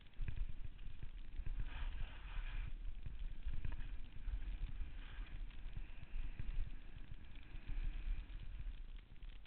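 Wind buffeting the microphone of a camera carried by a skier on the way downhill: a steady low rumble full of small thumps, with stretches of skis hissing and scraping over packed snow about two seconds in and again near five seconds.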